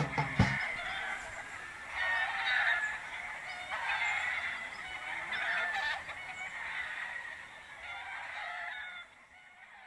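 A flock of roosters crowing and calling over one another in a dense, overlapping chorus, the kind heard from a farm of tethered gamecocks. It fades near the end.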